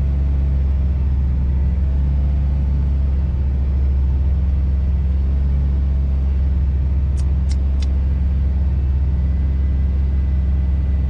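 Scania truck's diesel engine running with a steady low drone, heard from inside the cab. Three short, sharp clicks in quick succession a little past the middle.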